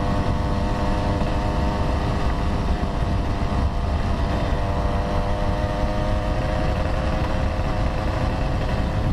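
Two-stroke scooter engine running at a steady cruising speed, with wind rumbling on the helmet-mounted microphone.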